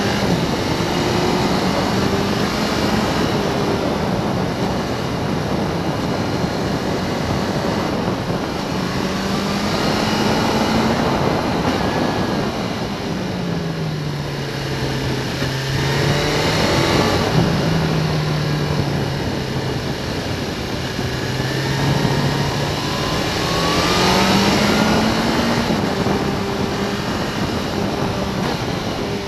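Motorcycle engine running at road speed, its pitch dropping and rising again several times as the rider eases off for bends and accelerates out of them, over a steady rush of wind on the microphone.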